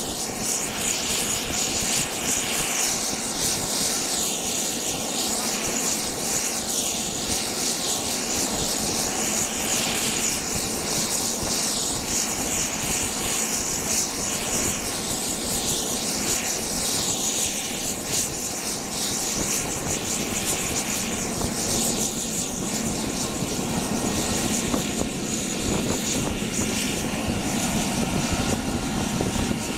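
Bell Boeing V-22 Osprey turbines running on the ground: a steady whine with a thin high tone over an even rushing noise, unchanged throughout.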